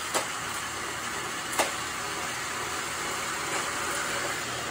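Steady mechanical noise of a K'nex roller coaster model running, with two sharp clicks about a second and a half apart.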